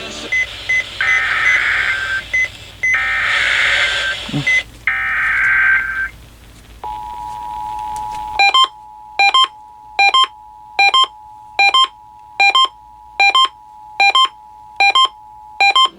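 Emergency Alert System test signals: three short bursts of SAME header data tones, then the steady two-tone EAS attention signal. From about eight seconds in, a short beep repeats roughly every 0.8 s over the attention signal.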